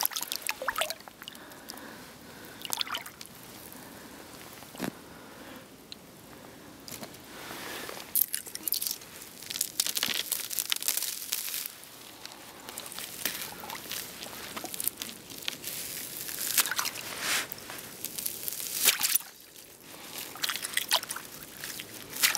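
A hand working on wet thin ice: irregular bursts of sloshing surface water and crunching, crackling ice.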